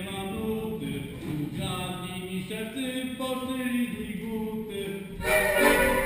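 Unaccompanied singing of a Polish folk song, with notes held briefly and no instruments. About five seconds in, loud instrumental folk dance music starts.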